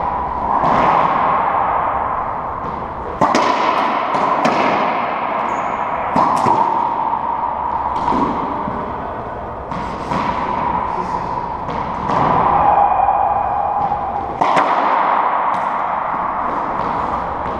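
A racquetball rally: about ten sharp, irregularly spaced hits of the rubber ball against racquet strings and the court's walls, each ringing with echo in the enclosed court.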